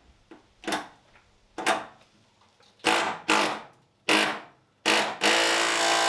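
Cheap impact wrench on a rusted bolt: a series of short trigger bursts, then a steady buzzing run of about two seconds starting about five seconds in. It is failing to free the seized bolt.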